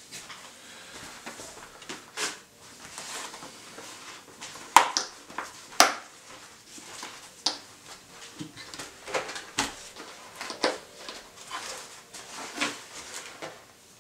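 Handling noise from a full-face motorcycle helmet as its interior padding is pulled out: rustling with irregular sharp plastic clicks and knocks, the two loudest about 5 and 6 seconds in.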